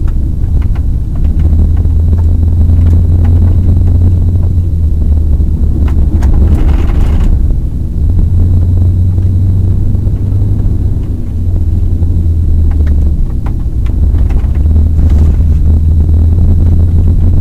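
Road noise inside a car driving on a gravel road: a steady low rumble of engine and tyres, with scattered clicks and knocks and a brief hiss about seven seconds in.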